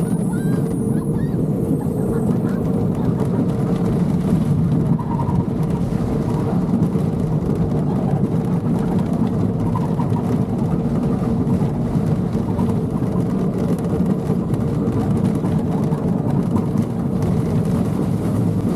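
Roller coaster with wooden cars running at speed along its steel track, making a loud, steady rumble.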